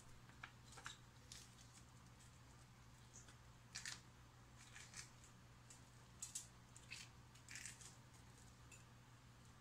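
Faint, scattered rustling and scraping of fingers pulling seeds and cores out of halved red bell peppers on a plastic cutting board, each sound short, over a steady low hum.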